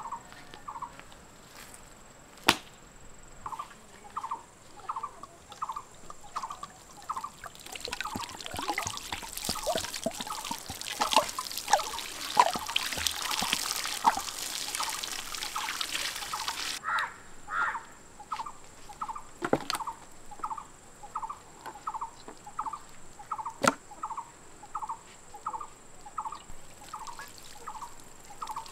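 Water poured from a clay jug splashing over a raw goat carcass on a wooden stump, heavy for about nine seconds in the middle and lighter around it. A short chirp repeats about twice a second throughout, and a few sharp knocks stand out.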